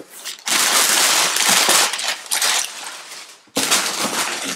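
Crumpled packing paper rustling and crinkling as hands dig through a cardboard shipping box: a long loud rustle from about half a second in, dying away, then more crackly rustling starting again about three and a half seconds in.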